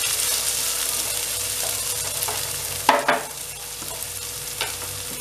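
Diced potatoes, onion and green peas sizzling in oil in a nonstick frying pan while a spatula stirs and scrapes through them. A sharp knock about three seconds in, after which the sizzling is quieter, with a few lighter clicks.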